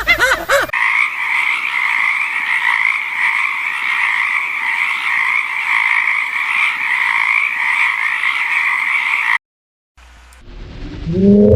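Frogs calling in a dense chorus, a steady unbroken trilling that stops abruptly about nine seconds in. It opens with the last moment of a horse's whinny and, after a brief silence, a low rising call begins near the end.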